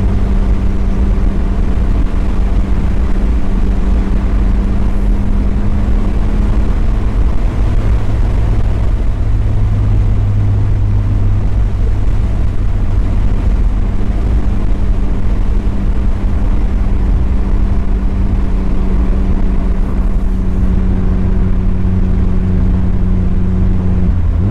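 Mazda Miata's four-cylinder engine running at cruise with road rumble, a steady drone whose pitch shifts a couple of times as speed or gear changes.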